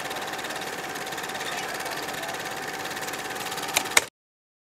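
A steady mechanical whirr with rapid, even ticking and a faint steady hum. Two sharp clicks come near the end, then the sound cuts off abruptly into silence.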